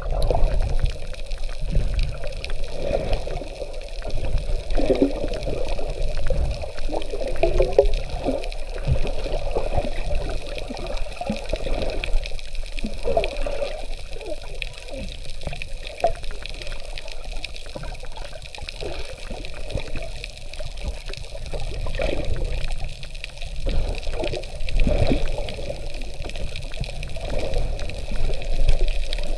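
Water sloshing and bubbling, heard underwater and muffled, with uneven low thumps and gurgles from the swimmer's movement.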